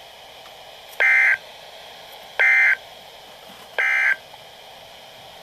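NOAA Weather Radio Emergency Alert System end-of-message data tones: three identical short bursts of digital data tone, each about a third of a second long and about a second and a half apart, over faint radio hiss. They mark the end of the broadcast alert.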